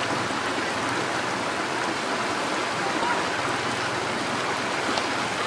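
Whole frogs deep-frying in hot oil in a wok, a steady sizzle.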